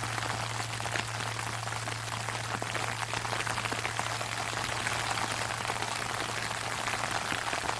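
Sleet falling on an umbrella, a dense steady patter of fine drops. Under it, a low steady hum lingers from a large Japanese temple bell (bonshō) between strikes.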